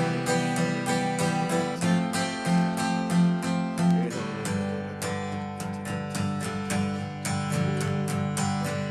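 Acoustic guitar strumming steady chords, changing chord about two seconds in and again about four seconds in.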